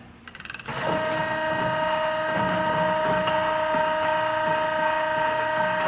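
LeBlond Makino engine lathe starting up under power: a brief clatter of clicks as it engages, then the headstock running at speed with a steady gear whine.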